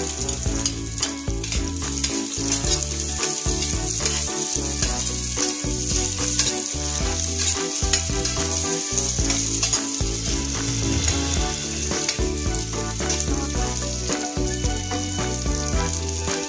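Garlic and onion sizzling as they sauté in hot oil in a stainless steel pot, with a spatula stirring them at times. Background music plays underneath.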